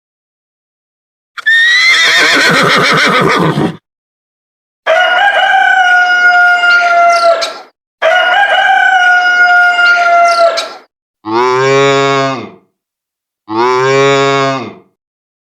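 A run of five separate farm-animal calls with short silent gaps between them. First comes a rough call rising in pitch, then two long high calls that fall slightly, then two shorter, deep calls like cattle mooing.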